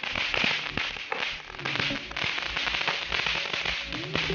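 Ground fountain fireworks (flower-pot type) hissing steadily as they spray sparks, with many small crackling pops.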